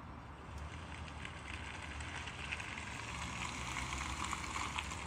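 Outdoor background noise: a low wind rumble on the microphone with a steady hiss that grows slowly louder.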